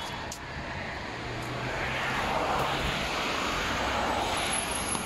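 A motor vehicle going past, a rushing noise that swells up about a second and a half in and holds.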